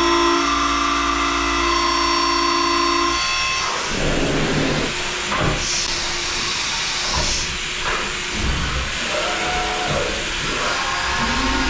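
Ibarmia THR 16P horizontal boring mill running a six-flute chamfer mill on a finish pass in 4140 steel: a steady whine of several tones for about three seconds, which then gives way to a steady hiss with a few sharp clicks.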